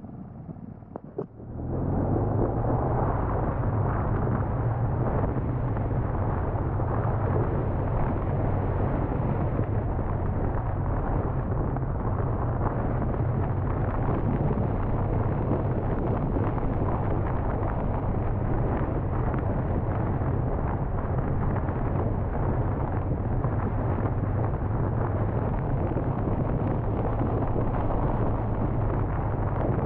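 Wind rush buffeting the onboard camera's microphone over the steady drone of a BMW R1200R's boxer-twin engine while riding. The noise jumps up sharply about two seconds in, then holds steady.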